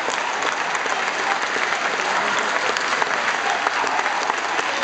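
Audience applauding, a steady spread of hand claps without a break.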